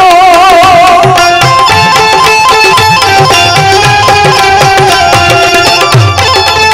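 Live Gujarati bhajan accompaniment: a singer's held, wavering note ends about a second in, then a melody instrument plays an interlude over a steady hand-drum rhythm.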